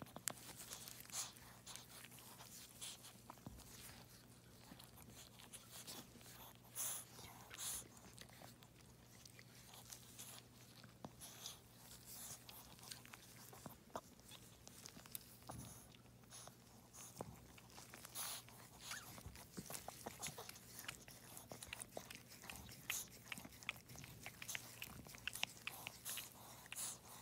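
A Yorkshire terrier in labour making faint, quick wet clicks and smacks, scattered irregularly, over a steady low hum.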